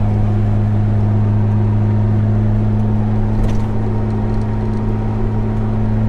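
Jeep Wrangler TJ driving at a steady speed, heard from inside the cabin: an even, low engine and road drone. No whistle or hum comes from the roof-mounted light bar, which is sealed with a cover: the noise fix is working.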